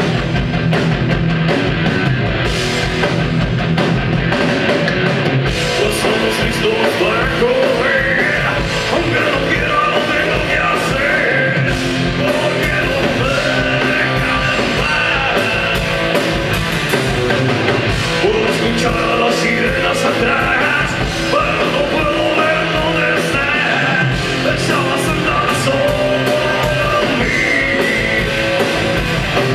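Rock band playing live: electric guitars, bass guitar and a drum kit, with a singer's vocals over them.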